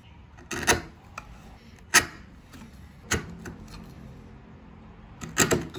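Bench chisel pushed by hand into a mortise in dense hardwood, squaring its corners: a handful of sharp knocks and clicks of the steel against the wood. The loudest comes about two seconds in, and a quick cluster comes near the end.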